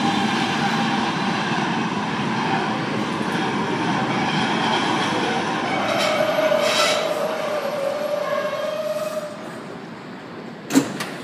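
R160 subway train pulling into the station, its wheels rumbling with a steady whine over them. The noise fades as the train comes to a stop near the end, followed by a sharp clank.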